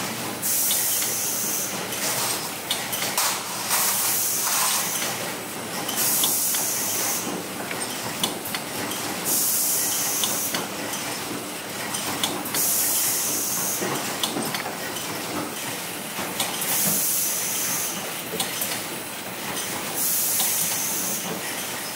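Horizontal flow-wrap packaging machine running as it wraps pieces of mochi in film: a steady mechanical clatter with many small clicks, and a short high hiss about every three to four seconds.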